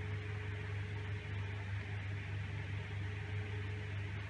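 Room tone: a steady low hum with an even hiss over it, unchanging throughout.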